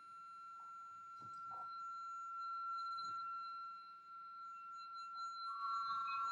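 A steady, high-pitched pure tone holds throughout, with fainter higher tones above it and a few soft knocks. A second, slightly lower tone comes in near the end.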